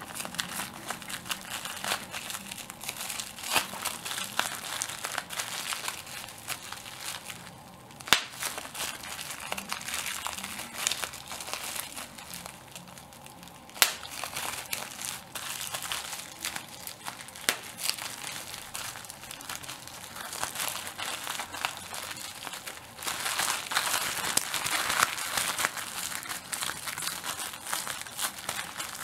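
Bubble wrap being squeezed and crumpled by hand, a continuous crinkling crackle of small bubbles popping. Two sharp, louder pops stand out, and the crackling grows denser and louder for a few seconds near the end.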